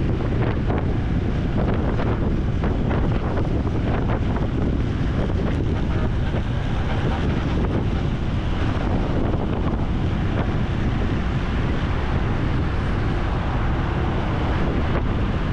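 Steady wind rushing over the microphone of a camera on a moving motorcycle, with the bike's engine and road noise underneath.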